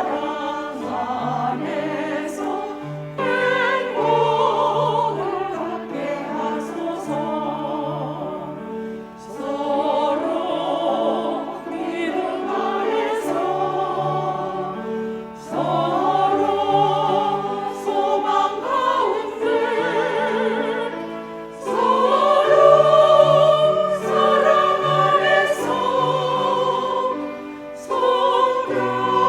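Church choir singing a hymn in phrases that swell and ease, with low accompanying notes stepping beneath the voices.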